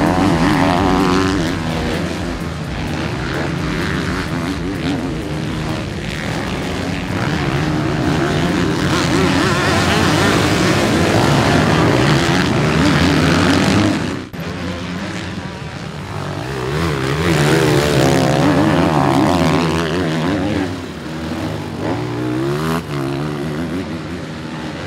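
Several motocross bikes' engines revving as they ride past, their pitch rising and falling with throttle and gear changes and overlapping one another. The sound dips sharply for a moment about halfway through.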